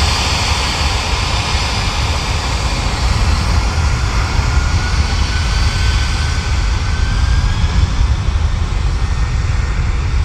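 Jet engines of a departing Boeing 747-400 freighter: a loud, steady roar with a deep rumble underneath. Around the middle, a faint whine slides slightly upward in pitch.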